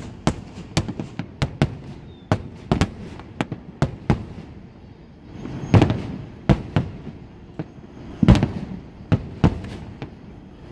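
Aerial fireworks shells bursting in an irregular barrage of sharp bangs and cracks, several a second, with the heaviest bursts about six and eight seconds in.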